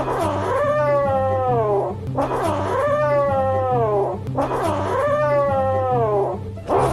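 A cat yowling three times, each call about two seconds long and sliding down in pitch, over background music with steady low notes.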